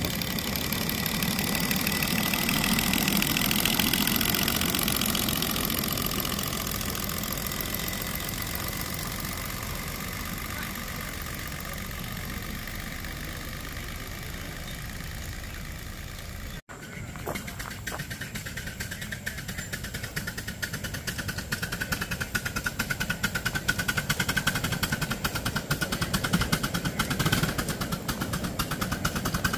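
1:12-scale live steam locomotives running on 4.75-inch gauge track. The first one chuffs with quick, even exhaust beats that swell and then fade as it pulls away. After a sudden cut a second one chuffs nearer and louder.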